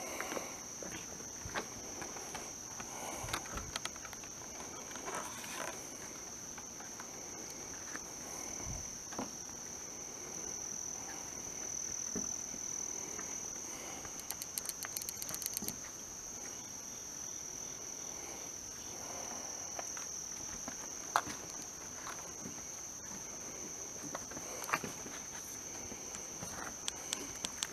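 A steady, high-pitched chorus of night insects keeps up throughout. Scattered knocks and clicks from footsteps on the wooden boardwalk sound over it, and about halfway through there is a brief fast pulsing trill.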